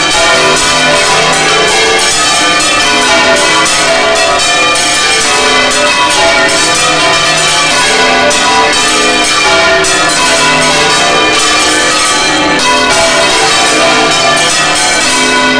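Several large cathedral bells swung full circle by hand in Spanish-style manual ringing (volteo), striking continuously and overlapping at many pitches. Loud and close, heard from inside the bell chamber.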